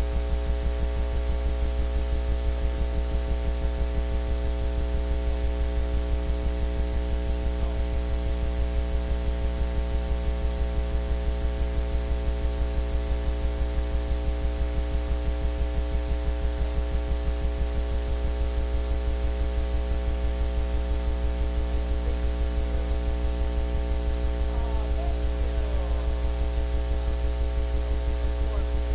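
Steady electrical mains hum in the recording, a low drone with a stack of steady overtones and a fast regular pulsing, which covers the room sound almost entirely.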